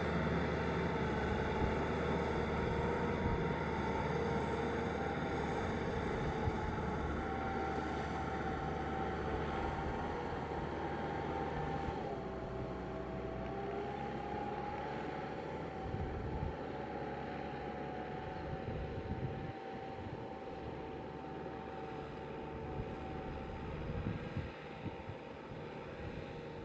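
Farm tractor's diesel engine running steadily under load while working a muddy field. Its pitch shifts slightly a couple of times, and the sound slowly grows fainter.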